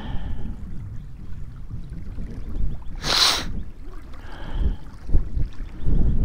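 Wind buffeting the microphone with a low rumble, broken about three seconds in by a short sharp hiss.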